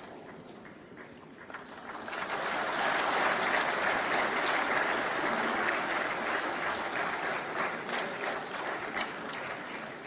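Audience applauding: dense clapping from many hands that swells about two seconds in and slowly fades toward the end.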